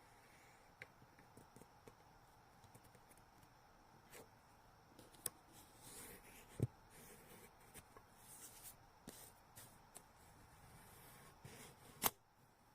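Quiet handling of gift packaging: soft rustling with scattered small clicks and taps, and a sharper click near the end.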